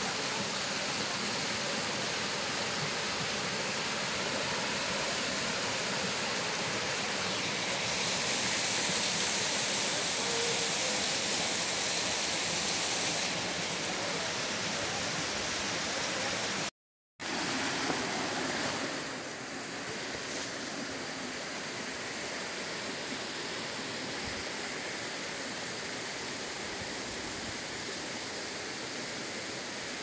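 A waterfall about 40 metres tall, its water rushing down a rock face in a steady, even rush. The sound drops out completely for about half a second just past halfway, then carries on slightly quieter.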